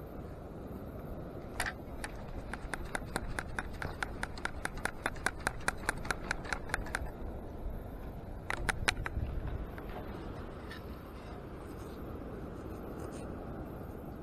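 A quick run of sharp clicks, about five a second for some four seconds, growing louder and then fading, with a few more clicks a moment later over a low steady background noise.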